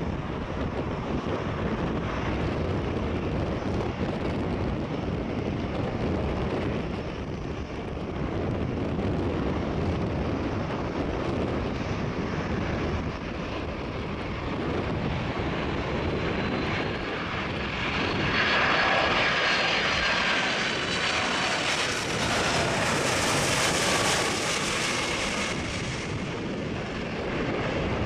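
McDonnell Douglas MD-11F freighter's three jet engines on final approach, a steady rumble. About two-thirds of the way in it swells into a louder whine with whistling engine tones as the jet passes closest, then eases off near the end.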